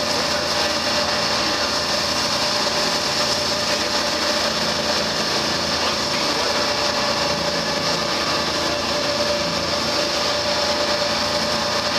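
Twin diesel engines of a 44 ft motor lifeboat running steadily under way at speed, a constant pitched whine over the rush of water from the wake.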